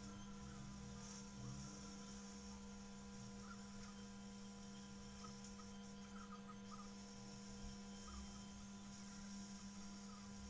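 Faint, steady electrical hum with a few thin higher tones above it.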